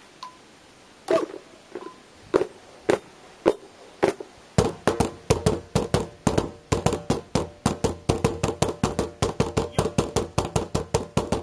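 Nunchaku beating on green plastic bins used as drums: a few single hollow knocks about half a second apart, then from about four and a half seconds in a fast, even roll of about five hits a second.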